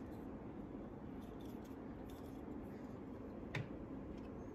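Small plastic toy pieces being handled, with faint light clicks and one sharper plastic knock about three and a half seconds in, over a steady low room hum.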